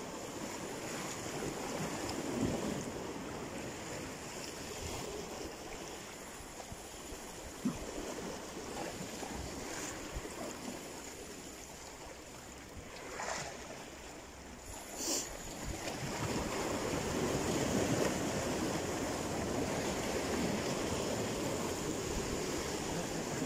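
Sea waves breaking and washing over shoreline rocks, a steady surf wash that swells louder in the last third, with wind on the microphone. Two brief sharper sounds stand out about halfway through.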